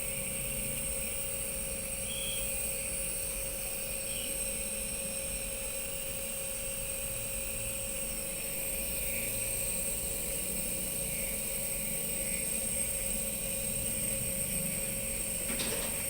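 Compressor nebulizer running steadily, a constant motor hum with an even hiss, while it gives a child a nebulizer treatment for a cough with phlegm.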